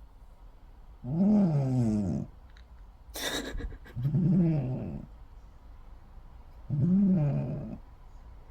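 A sleeping cat snoring: three pitched snores, each about a second long, rising then falling in pitch and coming roughly every three seconds. A short breathy puff comes between the first two.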